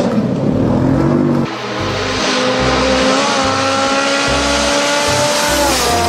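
Race car engine sound starting about a second and a half in, its pitch climbing slowly, then dropping away near the end.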